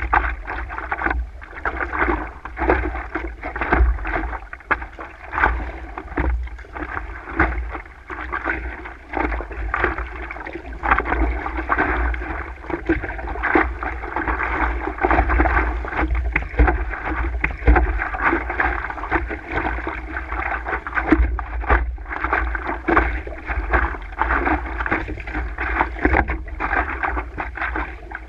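Water splashing and slapping against the nose of a stand-up paddleboard as it is paddled, with irregular splashes from the paddle strokes, picked up close to the waterline. A low rumble runs underneath.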